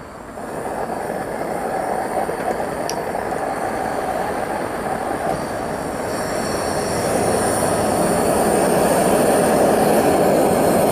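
Propane torches firing into a small 4-inch furnace: a steady rushing roar of gas and flame that starts about half a second in and grows louder around seven seconds in.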